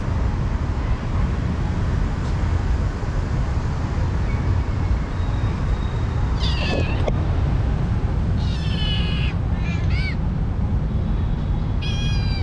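Kitten meowing: four short, high-pitched meows in the second half, over a steady low rumble.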